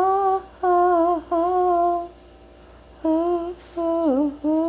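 A woman humming a slow tune with no accompaniment, in short held notes with brief pauses between; about four seconds in, one note dips down and back up in pitch.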